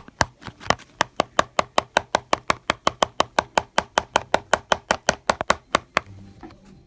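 A mixing utensil rapidly tapped against the edge of a bowl to knock off clinging slime mixture: a fast, even run of sharp knocks, about five a second, that stops about six seconds in.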